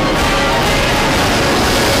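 Theme music fading out as the jet noise of a B-52 bomber flying over rises to take its place.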